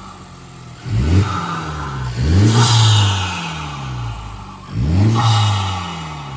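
Honda Civic Type R's turbocharged four-cylinder engine revved three times, each rev climbing quickly and then falling slowly back. A rushing hiss comes in near the top of the revs.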